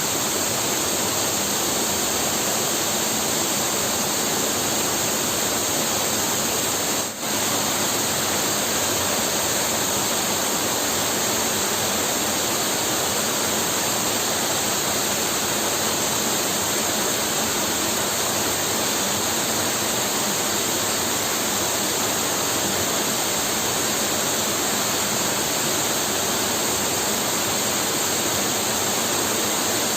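Waterfall plunging into a pool, a loud, steady rush of falling water, with a momentary dip about seven seconds in.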